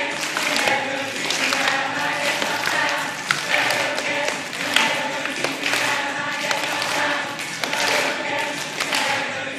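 A group of voices singing together, with scattered claps and taps.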